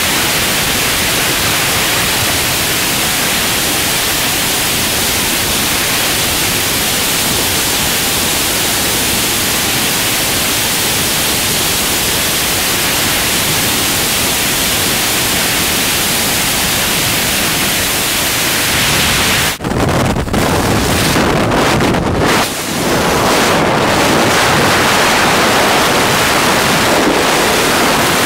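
Freefall wind noise from skydiving: a loud, steady rush of air on the microphone. About two-thirds of the way through it breaks up in a few short dips, then comes back fuller.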